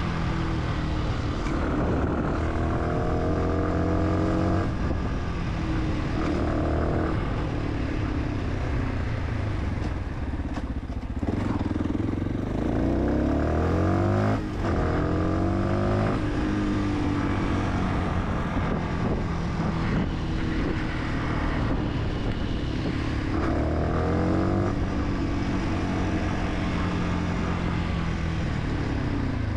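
Fantic 125 supermoto's single-cylinder engine under way, revving up through the gears in several rising runs of a few seconds each, with the pitch dropping back between them as it shifts or eases off.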